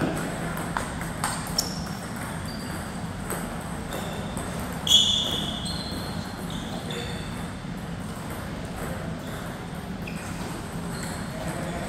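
Table tennis ball clicking sharply off bat and table a few times in the first two seconds as a rally ends, then scattered ball bounces and brief high pings. The loudest is a sharp ping about five seconds in that rings for about a second, over a steady low hum in a large room.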